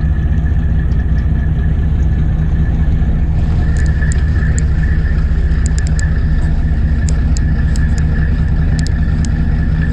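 Fishing boat's engine running with a steady low drone and a thin steady whine above it, with scattered light clicks from about three seconds in.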